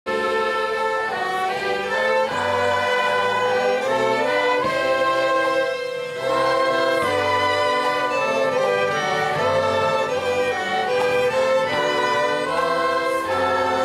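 Student orchestra led by violins and cellos playing a slow piece in long held notes.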